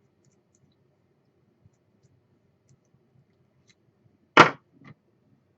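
A sharp clack of a small hard part knocked or set down on a hard surface, followed about half a second later by a lighter tap.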